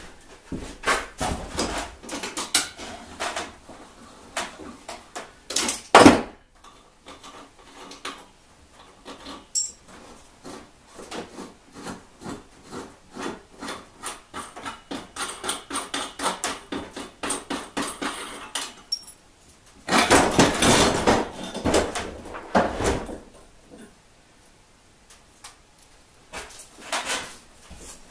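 Hand tools and metal trike parts clinking and knocking in a run of small strikes, with one loud knock about six seconds in and a dense flurry of strikes around twenty seconds in.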